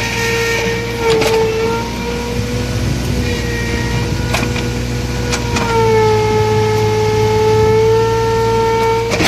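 Komatsu hydraulic excavator under load: the diesel engine hums low beneath a loud, steady hydraulic whine. The whine sags in pitch and recovers as the load changes, about a second in and again near the middle. A few sharp metallic clanks come through, about a second in and around four and five seconds.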